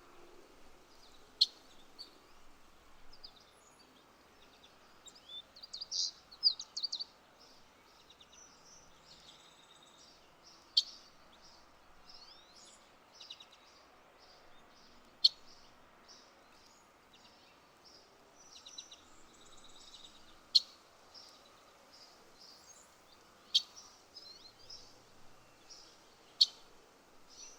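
Songbirds chirping: a sharp, loud single call every few seconds over fainter scattered chirps, with a quick run of trilled notes about six seconds in. A steady low background noise lies underneath.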